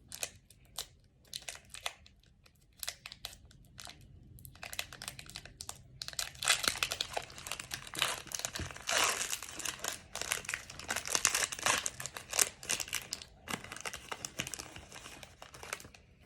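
Wrapper of a Panini Mosaic basketball card pack being torn open and crinkled: scattered crackles at first, then dense crinkling through the last ten seconds or so.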